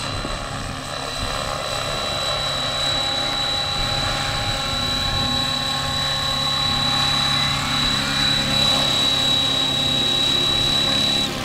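Electric RC scale model helicopter flying in low and landing: a steady high-pitched motor whine over the rotor's whirr, growing louder as it approaches. The whine cuts off abruptly near the end.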